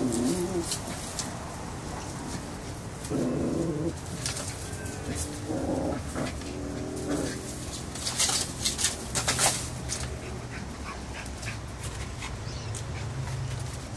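A Kelpie running about in a burst of play, with a few short, low animal calls of about half a second each. A flurry of sharp rustles and clicks comes about eight to ten seconds in.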